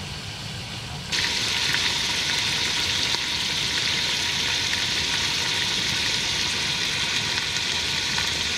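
Whole trout frying in a metal pot over a wood fire: a steady sizzle that starts suddenly about a second in, with small pops. Before it, about a second of a quieter low rumble.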